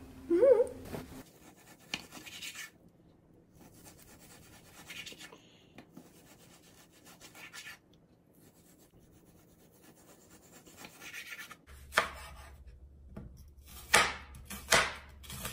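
A chef's knife sawing through raw beef on a cutting board with quiet rubbing and scraping strokes. Near the end it cuts through an onion, with about four sharp knocks of the blade against the board.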